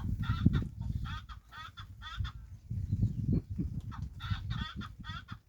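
A bird's short, warbling calls repeated in quick runs, about two a second, over a steady low rumble.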